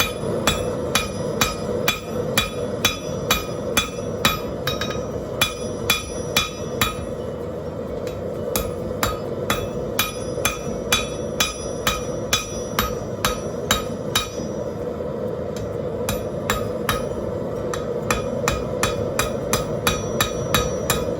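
Steady hammering on hot rebar on a 175 lb Trenton anvil, about two to three blows a second, each blow ringing. The blows shape the boss of a pair of tongs, with a short pause about seven seconds in. A steady rushing hiss runs underneath, typical of a running propane forge.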